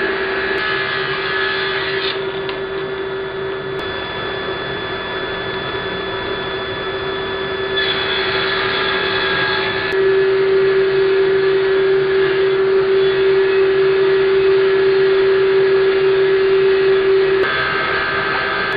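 Table saw with a thin-kerf 7¼-inch Freud Diablo framing blade ripping western red cedar into thin strips, fed by a power stock feeder, with an industrial dust collector running. A steady machine whine and hum, louder from about ten seconds in.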